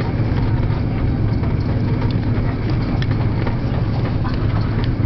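Cabin noise inside an Airbus A330 rolling along the taxiway after landing: a steady low rumble from the engines and the wheels on the pavement, with a few light clicks.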